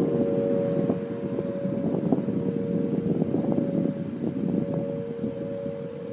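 Whelen 4004 electronic outdoor warning siren sounding a steady tone that slowly fades, nearly buried under heavy wind noise on the microphone.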